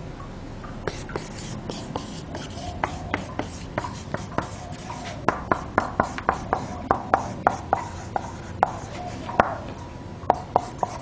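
Dry-erase marker writing on a whiteboard: a run of quick taps and short strokes of the marker tip, coming thicker and louder in the second half.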